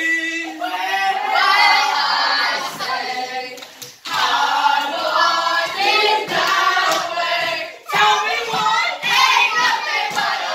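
A group of young people singing together, loud and lively. About eight seconds in, rhythmic hand clapping joins in on the beat, about two claps a second.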